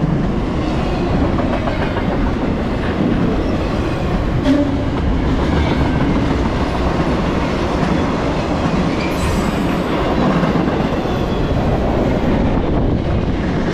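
Double-stack intermodal freight train rolling past close by: a steady rumble of well cars and their wheels running over the rails.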